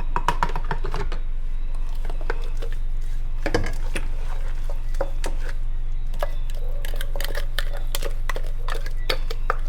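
Kitchen utensils and containers being handled: scattered light clinks and knocks, over a steady low hum.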